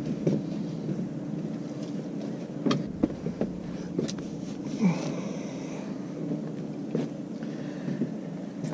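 Scattered knocks and bumps of someone moving about and handling gear in a small fishing boat, over a steady low hum.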